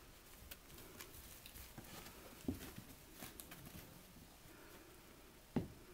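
Pug puppies scuffling and pawing at each other on a fleece blanket: faint scattered soft taps, with two louder knocks about two and a half seconds in and near the end.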